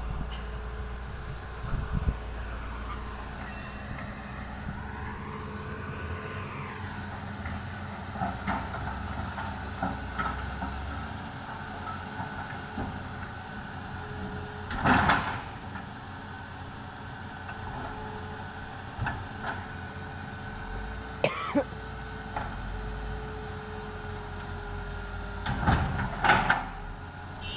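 Excavator running steadily, its pitch rising and falling once early on as the hydraulics work, with loud clattering knocks of rocks dropped into a truck bed about halfway, about two thirds in, and twice near the end.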